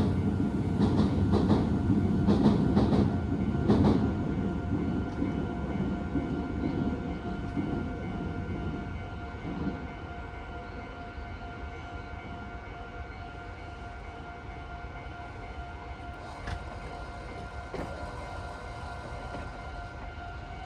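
Meitetsu electric train passing over the junction, its wheels clicking over the rail joints for the first few seconds before the sound fades away about ten seconds in. Underneath, a level crossing alarm rings steadily throughout.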